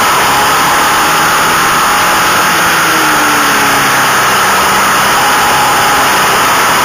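Steady rush of wind on the microphone of a motorcycle at racing speed, with the bike's engine running underneath and its pitch shifting slightly near the middle.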